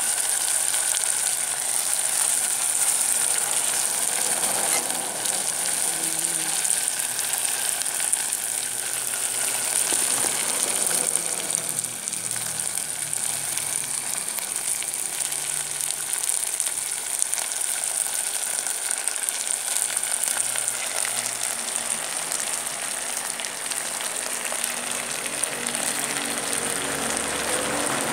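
Kangkong and sardines frying in a pan, with a steady sizzle that eases slightly about twelve seconds in.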